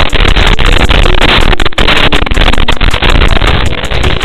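FPV quadcopter in flight heard through its analog video link's audio: a loud, harsh rushing noise of motors and propellers mixed with radio static, broken by frequent brief crackling dropouts.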